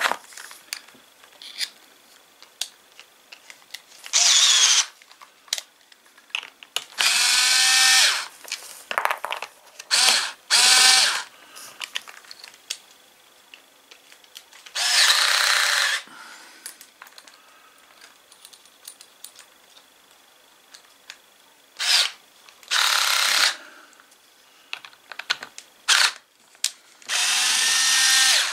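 Cordless drill-driver running in short bursts, about eight of them, backing out the Torx screws that hold the housing of a cordless mini chainsaw together, with small clicks between the bursts.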